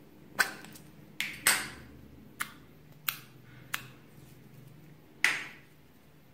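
Hard plastic M&M-shaped slime container clicking and snapping as it is handled and its lid is opened: seven sharp, irregularly spaced clicks, each with a short ring.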